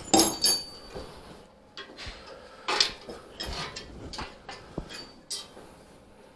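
Metal clanks and clinks as a motorcycle's steel rear fender is freed from its mounting bolts and handled. A loud clatter of knocks comes right at the start, followed by scattered lighter knocks.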